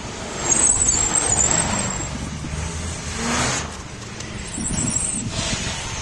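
Road traffic: cars and school buses driving past one after another, the noise swelling and fading with each pass. A brief high squeal comes about half a second in and again near the end.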